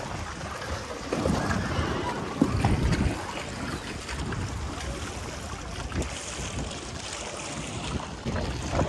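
Wind buffeting the microphone in uneven gusts over the wash of sea water around a boat.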